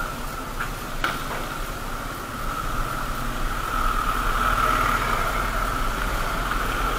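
Motorcycle riding at low speed, its engine and road noise heard through a handlebar-mounted camera as a steady hissy drone that grows louder about three seconds in. Two short clicks about a second in.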